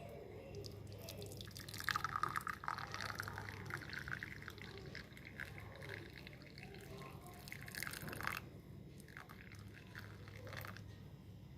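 Liquid being poured into a container, a dense trickling run of about six seconds that stops suddenly.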